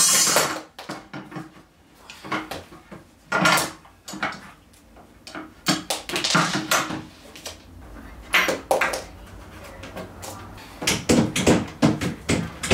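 Irregular knocks, clatters and scraping of wooden IKEA Hemnes drawer parts and their metal runners being handled and fitted together.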